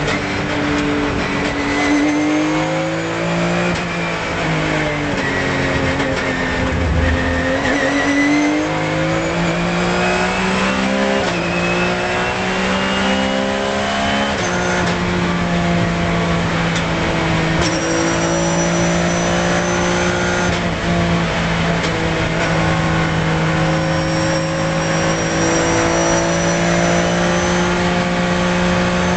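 Porsche 997 GT3 Cup's flat-six engine at racing speed, heard from inside the cockpit. The engine note dips through a slow corner a few seconds in, climbs through upshifts, then holds steady at high revs in fifth gear through the second half.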